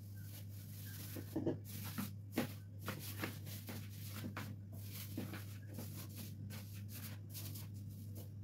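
Thin polythene bag crinkling and rustling in irregular crackles as hands handle it over dough in a plastic basin, with a few louder crackles between one and two and a half seconds in. A steady low hum runs underneath.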